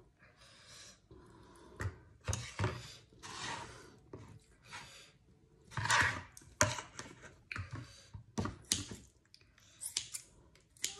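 Kitchen scissors snipping through a piece of cooked meat over a plastic bowl: a dozen or so irregular snips and wet cutting sounds.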